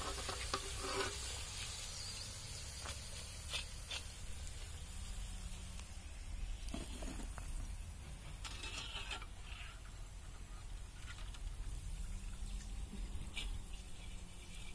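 Hot oil in an iron kadai sizzling as fried ivy gourd pieces are lifted out with a perforated steel skimmer, dying down about a second in. After that, scattered light clicks and taps of the skimmer over a low steady rumble.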